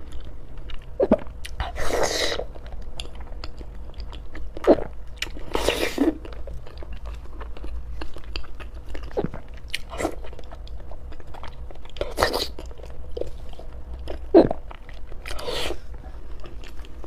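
Close-up mukbang eating sounds: a person chewing and biting into eggs and spicy noodles, with irregular wet mouth clicks and a few short louder noisy bursts.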